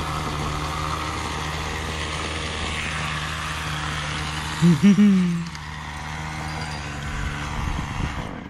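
Gas string trimmer running steadily, then cutting out near the end. About halfway through, a short voice-like sound in two quick rising-and-falling notes stands out above it.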